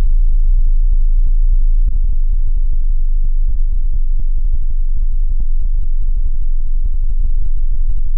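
Loud, very deep synthesizer sub-bass drone with a rapid buzzing flutter, with no drums over it.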